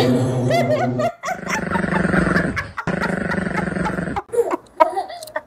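A small toy poodle's grunts and whines coming through a toy karaoke microphone's speaker, over a steady droning backing sound. Stifled laughter near the end.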